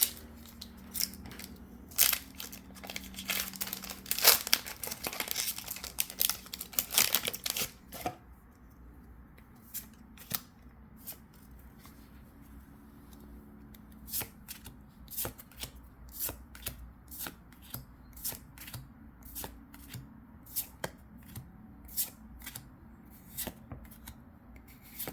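Foil Pokémon booster pack wrapper crinkling and tearing for about the first eight seconds, then trading cards being flicked through one at a time, a soft snap about once a second.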